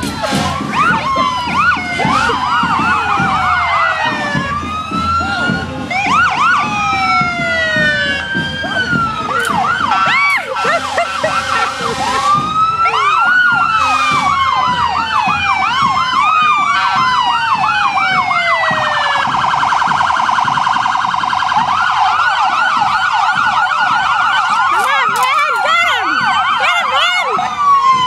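Several emergency-vehicle sirens from passing fire department vehicles sound at once, their rising and falling wails and yelps overlapping. A rapid warble joins about two-thirds of the way in.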